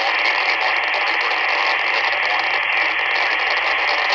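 Loud, steady hiss of static from a receiving two-way radio on an analog VHF channel, with no voice in it. It cuts off suddenly about four seconds in.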